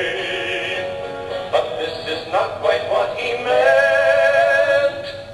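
A male comedy duo singing a humorous song, played back from a video through the room's speakers, with long held notes near the end.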